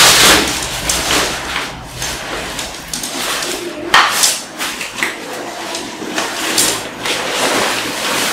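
Children's tent fabric rustling and crinkling as fiberglass frame poles are pushed through its sleeves and the tent is handled, with louder sharp rustles at the start and about four seconds in.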